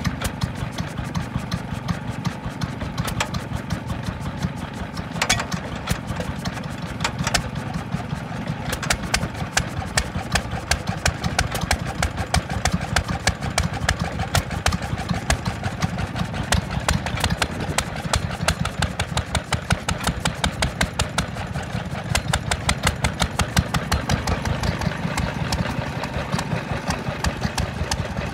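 Vintage stationary engine running steadily, with a fast, even beat of sharp knocks over a low hum.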